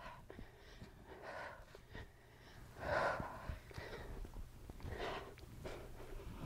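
A woman's heavy breaths out from exertion, soft puffs a couple of seconds apart, the strongest about halfway through.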